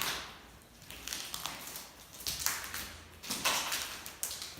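Footsteps scuffing across a floor, three or four steps about a second apart.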